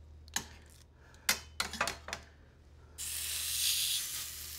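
A few metallic clinks of tongs and stainless cookware. About three seconds in, a beef tenderloin medallion goes into a hot stainless skillet and starts a steady sizzle of searing.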